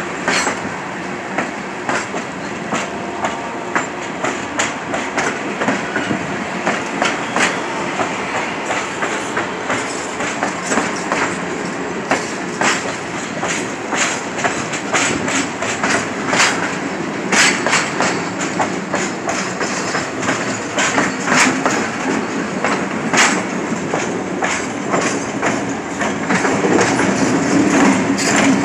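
Passenger train cars rolling slowly past close by, their wheels clacking irregularly over the rail joints. Near the end the train's diesel locomotive comes alongside, and the low drone of its engine swells up under the clacking.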